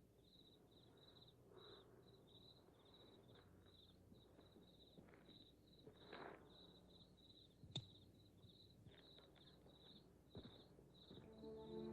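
Faint crickets chirping, about three chirps a second, as night ambience. A single sharp click sounds about eight seconds in.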